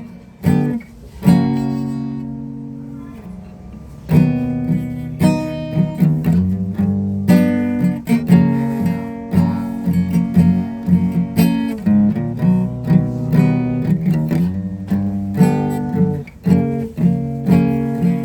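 Acoustic guitar being played. About a second in, a chord rings out and fades; from about four seconds in, a steady run of picked and strummed chords follows.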